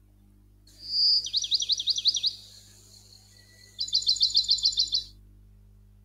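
A bird singing in two phrases: a short whistled note leading into a run of about six quick falling notes, then after a pause of about a second and a half, a faster run of about nine clipped notes.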